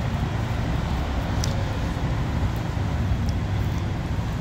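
Steady low rumble of an Irish Rail diesel train's engines idling at the platform, with a couple of faint ticks.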